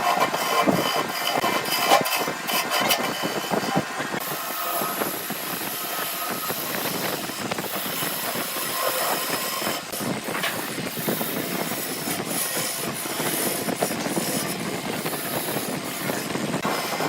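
Wood lathe running with a cutting tool shaving the spinning wood. There is uneven knocking and scraping for the first few seconds, then a steadier hiss.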